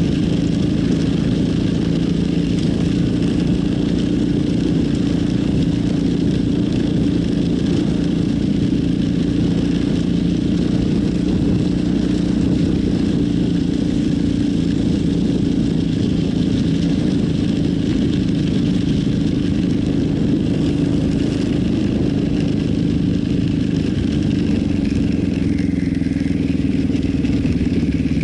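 Yamaha Warrior 350 quad's single-cylinder four-stroke engine running at a steady pace while the quad is ridden along a rough dirt trail. The engine note holds nearly even in pitch throughout.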